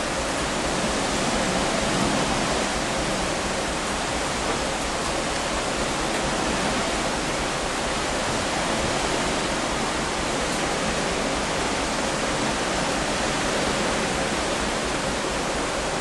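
Steady wind rushing over the microphone on a moving ship's open deck: an even hiss with a flickering low rumble, no breaks.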